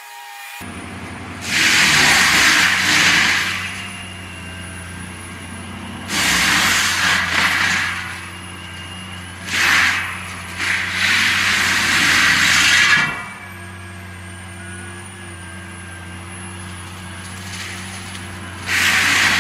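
Heavy machinery with its engine running steadily, broken by five loud rushing, hissing bursts of about one to two and a half seconds each. The engine note shifts a little after the fourth burst.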